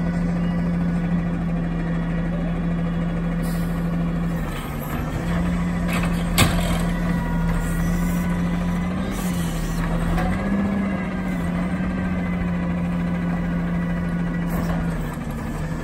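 Natural-gas automated side-loader garbage truck running steadily while its hydraulic arm lifts a trash cart up over the hopper to empty it. A single sharp knock sounds about six and a half seconds in, and a few short hisses of air come and go.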